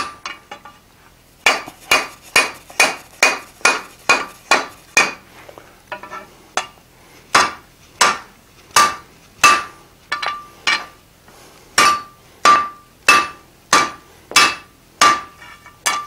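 Hand hammer striking a red-hot bar on an anvil in a steady run of blows, about one and a half a second, each with a short metallic ring from the anvil. A few light taps come about a second in, before the steady strokes begin. The blows are thinning the hot bar to push more mass into a forged square corner.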